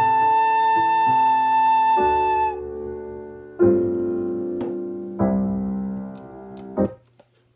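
Soprano recorder holding one long high final note over piano accompaniment, stopping about two and a half seconds in. The piano then plays closing chords that ring and fade, ending with a short last chord near the end.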